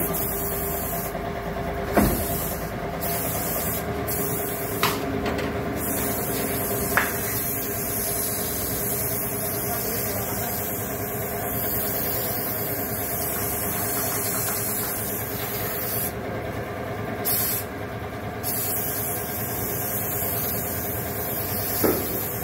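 Gravity-feed paint spray gun hissing as it sprays paint onto a car door, the hiss stopping briefly several times. Under it runs a steady mechanical hum, with a few sharp clicks.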